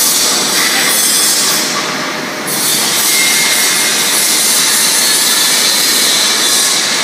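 BOPP tape coating machine running: a steady mechanical rushing hiss of its rollers and drive, with clear film feeding over the rollers.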